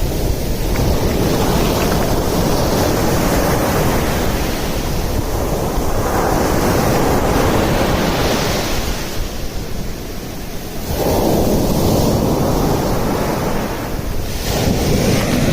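Ocean surf breaking and washing up a beach, the noise swelling and ebbing with each wave every few seconds, a fresh surge about eleven seconds in. Wind buffets the microphone with a steady low rumble.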